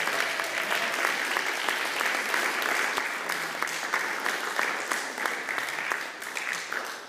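Audience applauding a curtain call, steady clapping that thins out and dies away near the end.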